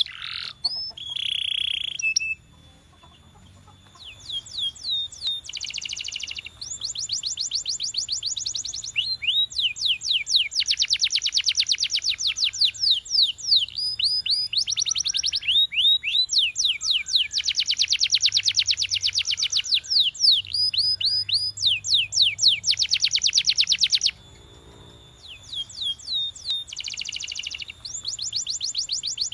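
Canary singing: long, fast trills of rapidly repeated sweeping notes in phrases of a few seconds each, broken by short pauses.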